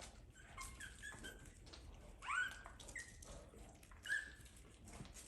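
Tiny Pomeranian puppies squeaking and whining in short high-pitched cries while they nurse, the loudest about two seconds in and another about four seconds in.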